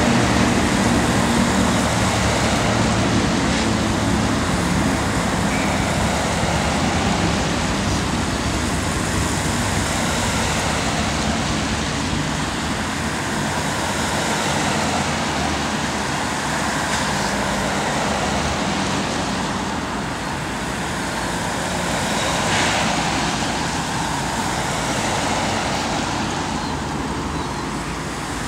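A slow, continuous procession of police cars passing close by: engines running and tyres hissing on wet pavement, with an engine hum strongest in the first few seconds.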